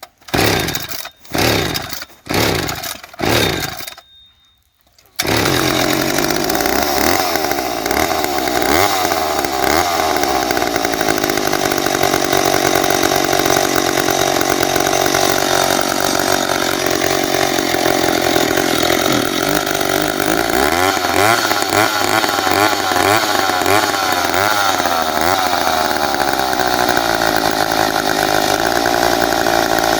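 McCulloch 10-10A two-stroke chainsaw being started: a few short bursts, a brief pause, then the engine catches about five seconds in and runs on steadily at high speed, its pitch wavering up and down.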